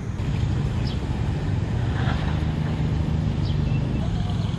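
Diesel locomotive engine running steadily, a low drone that rises a little in level just after the start.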